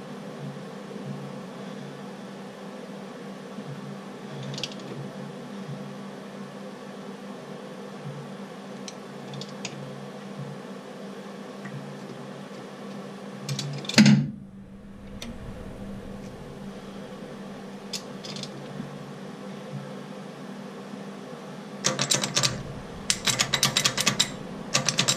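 Steady low hum of workshop background noise with a few faint clicks, a single knock about halfway through, and a quick run of sharp metallic clicks near the end.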